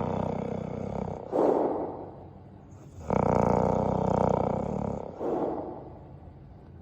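Chow Chow dog snoring in two cycles about four seconds apart. Each is a long snore followed by a shorter, louder breath.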